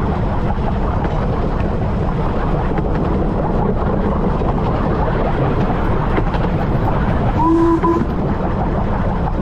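15-inch gauge steam locomotive River Mite running along the line, a steady heavy running noise from the engine and track, with a short whistle blast about seven seconds in.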